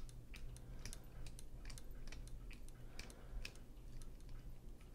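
Faint, irregular light metal clicks of a screwdriver turning a small body screw into the titanium handle of a folding knife.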